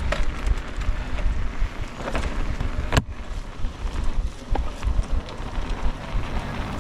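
Wind rushing over a GoPro's microphone as an e-mountain bike rolls down a trail, with low tyre rumble and the bike clattering over bumps; one sharp knock stands out about three seconds in.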